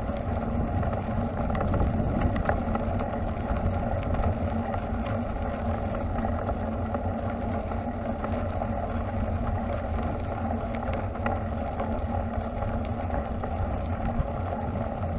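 Steady wind rush on the microphone and the rolling noise of tyres on a paved path during a ride, with no distinct events.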